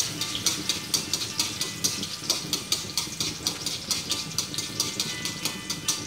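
Onions frying in hot fat in a metal wok, sizzling, while chopsticks stir and click against the wok about five times a second.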